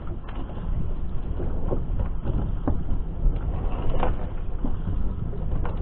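Steady low rumble of a fishing boat's engine running, with scattered light knocks and clicks through it.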